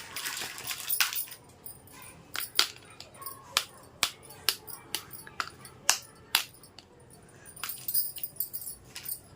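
Small plastic toy pieces being handled: a crinkly rustle at first, then a run of sharp plastic clicks and taps, roughly two a second, as parts are set down and snapped against each other, with softer handling near the end.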